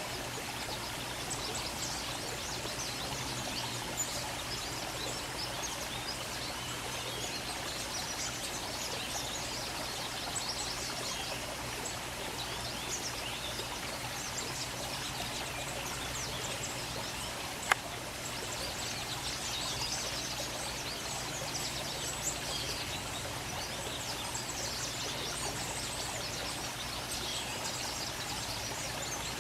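Steady outdoor background hiss with many faint, quick high chirps or ticks scattered through it, and one sharp click about eighteen seconds in.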